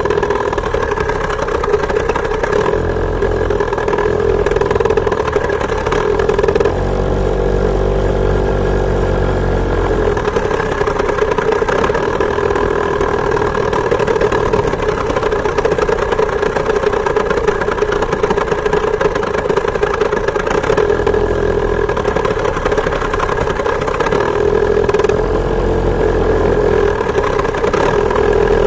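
Two-stroke chainsaw engine driving a homemade moped, running steadily under way, its note shifting briefly about seven seconds in and again near the end.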